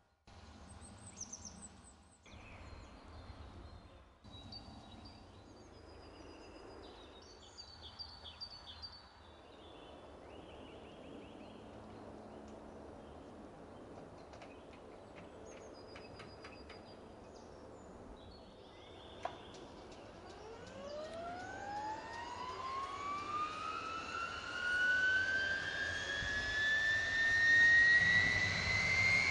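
Kaman K-MAX helicopter's turboshaft engine starting up: a whine that comes in about two-thirds of the way through and climbs steadily in pitch and loudness as the turbine spools up. Before it, birds chirp faintly.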